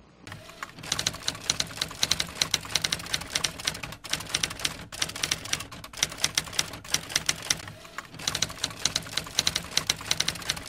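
Typewriter keys clacking in rapid strikes, several a second, broken by a few short pauses.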